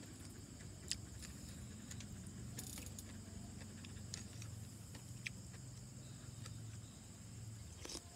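Occasional faint clinks of a metal spoon against a ceramic soup bowl, a few single clicks spread out, over a steady low hum.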